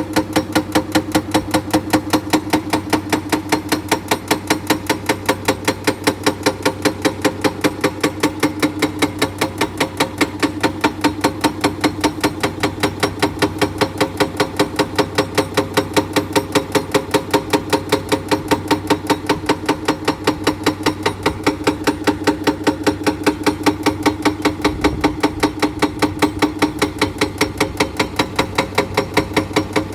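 Excavator-mounted hydraulic breaker hammer pounding limestone in a fast, even rhythm of about five blows a second, with the excavator's engine running steadily underneath.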